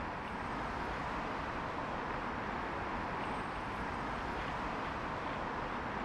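Steady outdoor background hum like distant road traffic, even throughout with no distinct events.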